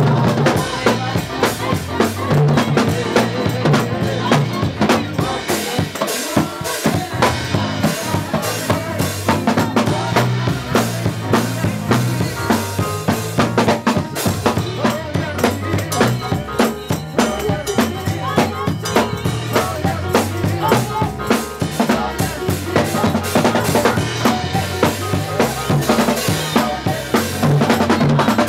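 Live gospel praise music: a drum kit and a metal-jingle tambourine keep a steady, driving beat, with a keyboard and a woman's singing voice over it.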